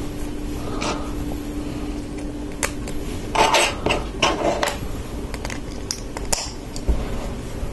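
Small plastic Lego pieces clicking and rattling as they are handled and pressed together, with a burst of clicks about three to five seconds in.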